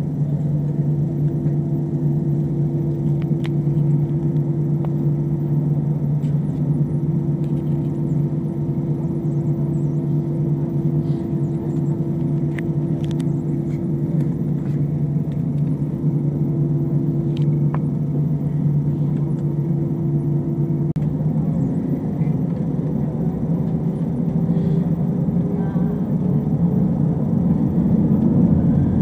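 Airbus A320 jet engines heard from inside the cabin, idling with a steady hum, then spooling up for takeoff about three-quarters of the way in: a slowly rising whine as the sound grows louder and the takeoff roll begins.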